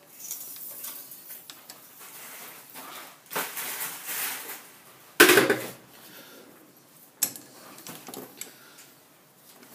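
Metal clattering and scraping around a metal lathe, with one loud metallic clank about five seconds in, followed by a few light clicks.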